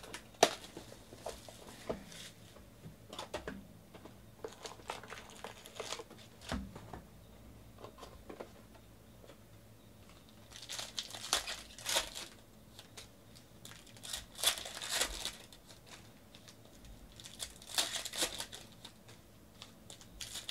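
Foil trading-card pack wrappers crinkling and tearing as packs are opened, in three spells in the second half. Before that come light clicks and taps of cards being handled.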